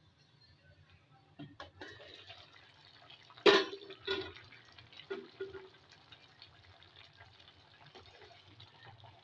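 Glass-and-steel pot lid clanking as it is lifted off the pot, with one sharp ringing knock about three and a half seconds in and a few lighter knocks after. Rice and vegetables then simmer with a soft, faint bubbling.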